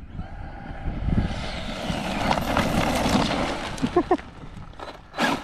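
Electric RC truck driving past on dirt, its motor whine mixed with the rush of tyres on loose ground, building up and then fading. About four seconds in there are a few short rising whines as the throttle is blipped, and a brief loud rush follows near the end.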